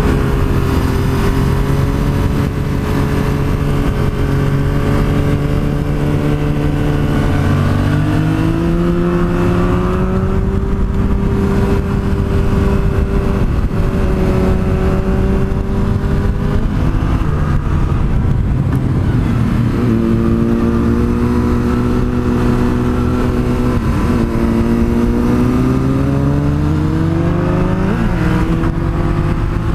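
Yamaha FZ-07's parallel-twin engine running under load, heard from the bike over a steady rush of wind. Its note holds, then climbs and falls back several times with the throttle through the curves.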